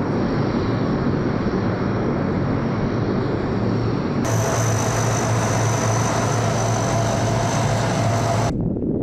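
Lockheed C-130 Hercules transport's four turboprop engines running as it taxis: a steady propeller drone with a high turbine whine. About four seconds in, the sound jumps to a brighter, louder whine with a clear tone, and it cuts off suddenly near the end.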